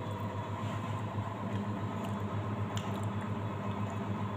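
A steady low mechanical hum, with a few faint ticks over it.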